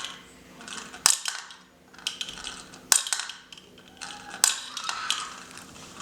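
Plastic mini tabletop finger basketball toy being played: three sharp plastic clicks, each followed by a short rattle, as the launcher is flicked and the small ball clatters.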